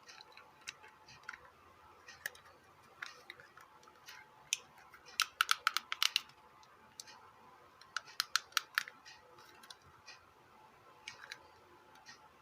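Small sharp clicks and taps of a Bluetooth speaker's casing being reassembled by hand, with two quick runs of clicking about five and eight seconds in.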